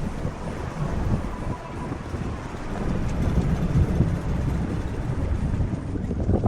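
Wind buffeting the microphone over the low rumble of a cruise ship under way at sea, a steady noise that swells and dips without any clear tone.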